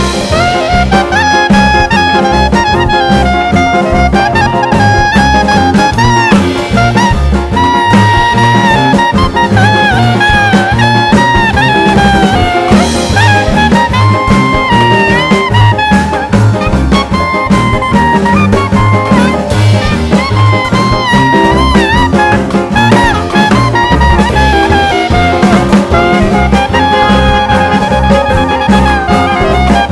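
Background music: a swing-style jazz tune with brass horns playing the melody over a steady beat.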